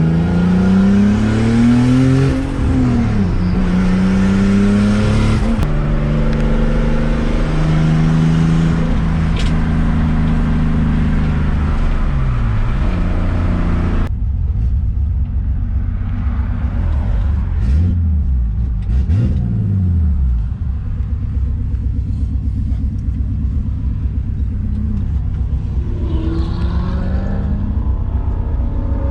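Car engine pulling through the gears of a manual gearbox: its pitch climbs, drops back at an upshift a couple of seconds in, and climbs again. It then holds steady, and about halfway through turns to a duller, steady drone with small rises and falls in pitch.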